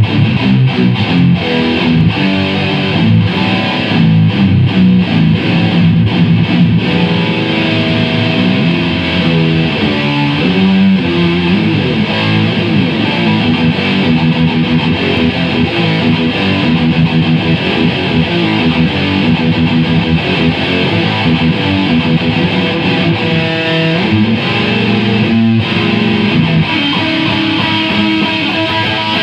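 Distorted electric guitar played through an S&K VHD preamp into an Acoustic 833 tube power amp. It is choppy, stop-start chords for the first several seconds, then more sustained riffing.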